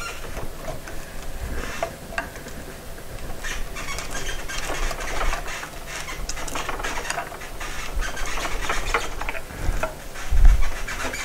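Loose wooden newel post being worked free from the handrail by hand and with a prying tool: wood and metal scraping and rubbing with many small clicks, and a heavier dull knock near the end.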